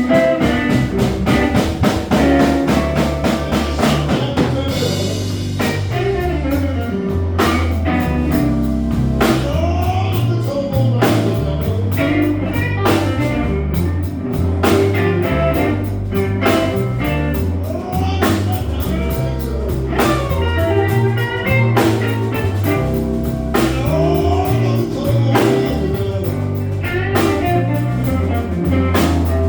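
Live blues band playing a slow blues: electric lead guitar bending notes over bass guitar and drum kit.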